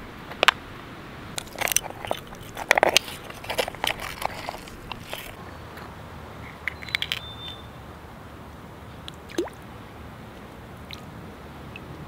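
Clam shells clicking and scraping together as they are handled and pried apart, a quick run of sharp clicks over the first five seconds, then a few scattered ones. A shallow stream trickles steadily underneath.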